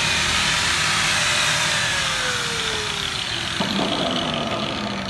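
Electric angle grinder with a buffing wheel winding down, its whine falling slowly in pitch as the motor coasts to a stop. A sharp knock comes about three and a half seconds in, over a steady mechanical din.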